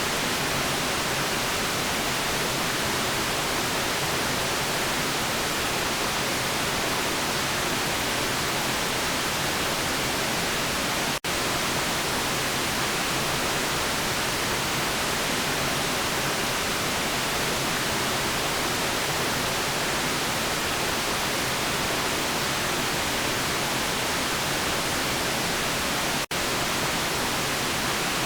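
Steady white noise, an even hiss with the most energy in the upper range. It cuts out for an instant twice, about eleven seconds in and near the end.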